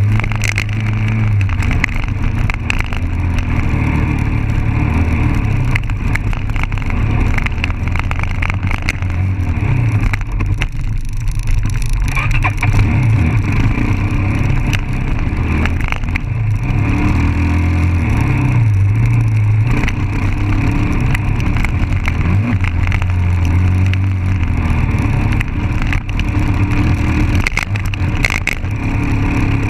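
Dirt bike engine running under throttle on a rough trail, revving up and dropping back again and again, with a short easing off about eleven seconds in.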